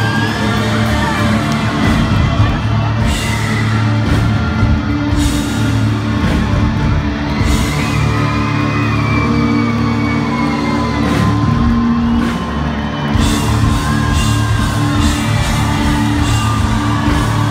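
Hard rock band playing live in an arena: loud electric guitar and drums, with the crowd whooping and yelling along.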